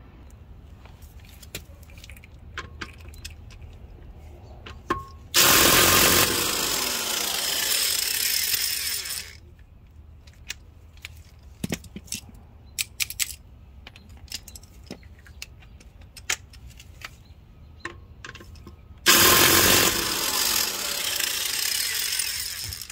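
Impact wrench hammering the wheel's lug nuts loose in two bursts of about four seconds each, with light metallic clinks of nuts and socket in between.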